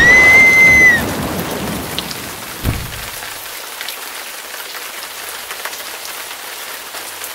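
A sudden loud start with a high, whistle-like tone held for about a second, then a steady hiss like heavy rain, with a single low thud about two and a half seconds in.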